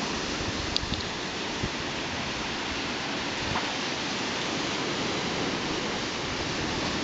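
Steady hiss of surf washing onto a sandy beach, an even wash of noise with no let-up.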